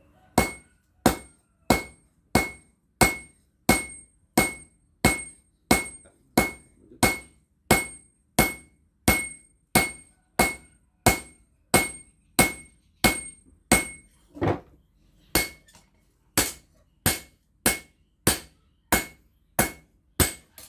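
Hand hammer striking a red-hot steel blade on a steel anvil in a steady forging rhythm, about three blows every two seconds, each blow with a high metallic ring. After a brief break about two thirds of the way in, the blows go on with less ring.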